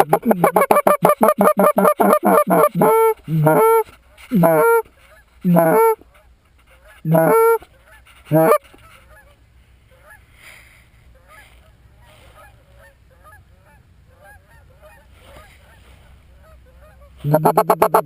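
Geese honking: a quick run of loud honks, then a handful of longer single honks, then faint, distant honking for several seconds. The loud rapid honking starts again near the end.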